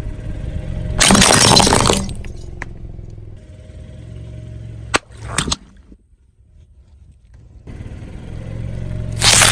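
Car tyre rolling over and crushing objects, with the car's engine running underneath: a loud crushing burst about a second in, two sharp cracks near the middle, a brief drop to near silence, then the engine again and another crushing burst near the end.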